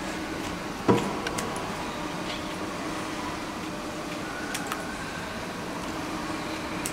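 Scissors cutting a patch from PVC inflatable fabric, with a few sharp snips and one louder click about a second in, over a steady machine hum.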